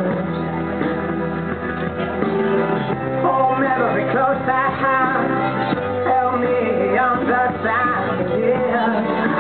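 Pop song with a singing voice over instrumental backing, playing for a dance routine.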